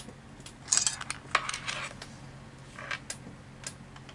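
Handling noise as the phone is moved away from in front of the monitor: a cluster of clicks and rustling about a second in, then a few single clicks, over a low steady hum.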